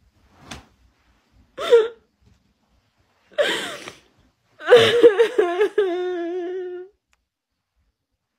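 A woman crying with a tissue pressed to her face: a sniff, a short whimpering sob, a shaky rushing breath, then a long wavering wail that settles on one held note before breaking off.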